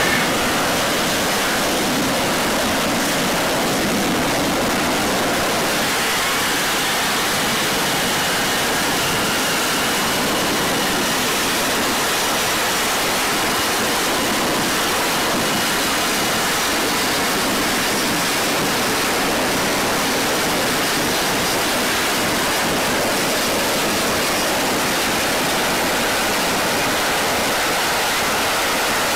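Steady, even roar of an F-35B's jet engine and lift fan in a vertical-landing hover, with a faint high whine over it.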